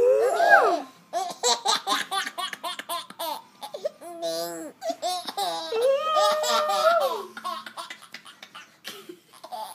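A baby boy laughing hard: a high squeal that rises and falls at the start, then runs of quick laughs several a second, broken by longer drawn-out laughing squeals, dying down near the end.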